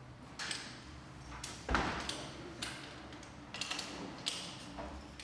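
Climbing hardware on a hanging rope-access harness and webbing lanyard clinking and knocking as the lanyard is handled and adjusted: a scatter of light taps and clicks, with one heavier thump a little under two seconds in.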